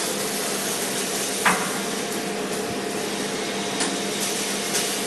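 A single sharp metal clank about a second and a half in, as the steel flatbed's widening latch handle is worked by hand, with two faint clicks later, over a steady mechanical hum.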